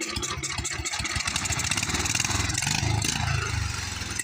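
1967 Jacobsen Chief garden tractor engine running with an even, pulsing beat. It is revved up harder from about two seconds in and eases slightly near the end.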